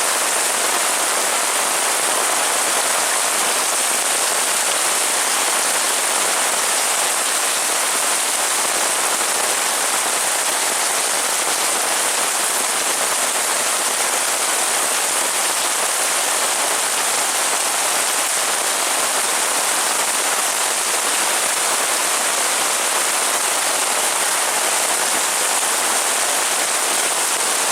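Heavy rain falling steadily: a dense, even hiss of downpour that holds at the same level throughout.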